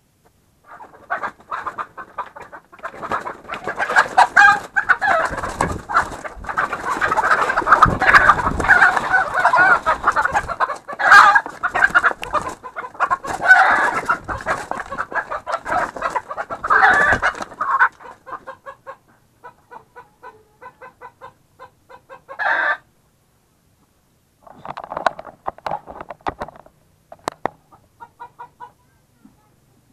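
A chicken squawking loudly and almost without a break as it is grabbed and held by hand. After about eighteen seconds this gives way to a run of short, evenly spaced clucks, with one sharp squawk near the middle.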